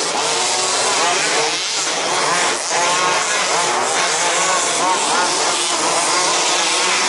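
Several 1/5-scale RC Baja buggies' small two-stroke petrol engines racing together, each revving up and down in quick, overlapping rises and falls in pitch.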